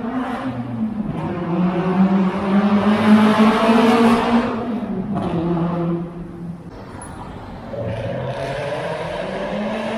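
Toyota four-cylinder car engine with an aftermarket exhaust muffler, pulling up through the revs. It eases off about four and a half seconds in, drops lower and quieter, then picks up again near the end.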